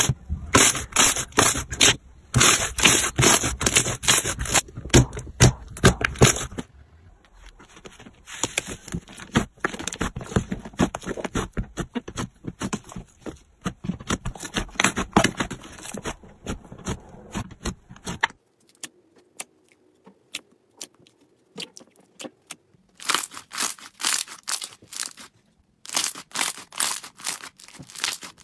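Slime being squeezed and worked by hand: dense runs of crackling, popping clicks. The clicks thin out and grow quieter for a few seconds after the middle, then come back thick near the end.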